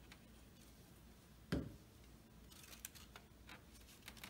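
Paper pieces being handled on a table: one dull thump about a second and a half in, then light rustling and small clicks of paper.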